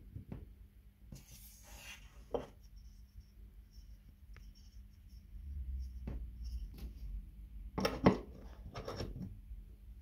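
Plastic LED bulbs being handled and fitted into lamp sockets. Scraping and rubbing as the E14 candle bulb is screwed in is followed by scattered light clicks, then a cluster of louder clicks about eight seconds in as the GU10 spot is pushed and twisted into its socket.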